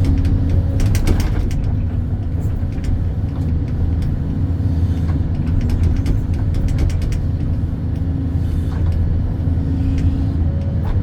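Hydraulic excavator's diesel engine running steadily under working load, with scattered metallic clanks and knocks from the digging gear.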